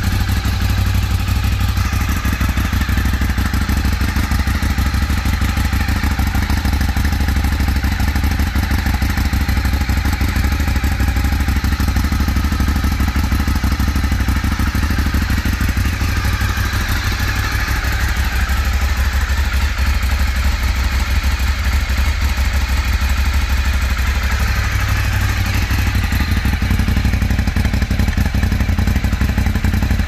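A 2008 Ducati 848's L-twin engine idling steadily through its stock underseat twin exhausts, cold from the start it has just made and still warming up.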